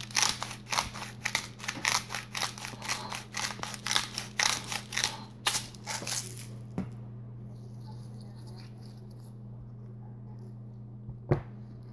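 Hand-twisted garlic-and-sea-salt grinder cracking seasoning in quick crunching twists, about three to four a second, stopping after about six seconds. A steady low hum runs underneath, with one sharp click near the end.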